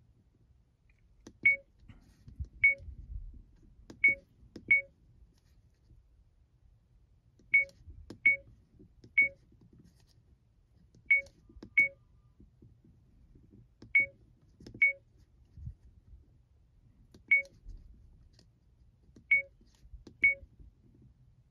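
70mai A200 dashcam's button beeps as its settings menu is stepped through: about fourteen short, identical high beeps at irregular intervals, singly and in quick pairs, each with the click of the pressed button.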